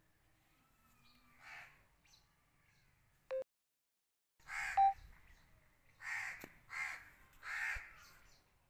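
A bird's harsh call repeated four times in the second half, the first the loudest. Shortly before the calls, a short beep from the phone camera starting to record, followed by a second of total silence.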